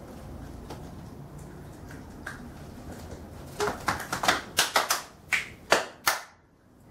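Hands clapping: after quiet room tone, a quick, uneven run of about nine sharp claps starts about three and a half seconds in and stops abruptly a couple of seconds later.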